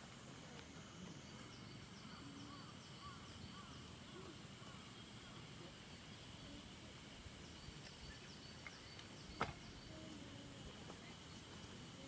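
Faint outdoor ambience: scattered small bird chirps over a steady high insect drone, with one sharp knock about nine seconds in.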